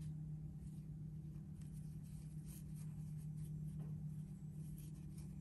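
Faint, soft scratching and rustling of yarn as a metal crochet hook is worked through stitches, over a steady low hum.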